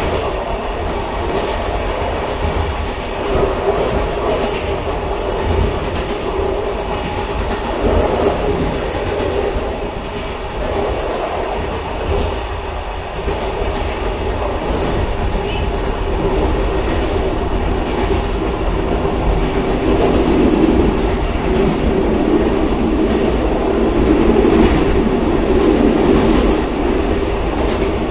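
Railcar running along the track: a steady rumble of wheels on rail with occasional clicks at the rail joints, and a droning hum that grows louder in the second half.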